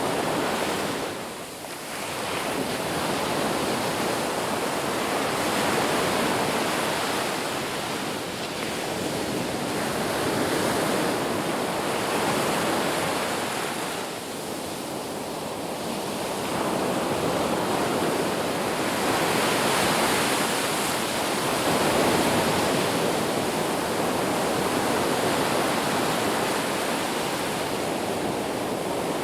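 Ocean waves breaking on a beach: a continuous wash of surf that swells and falls back every few seconds.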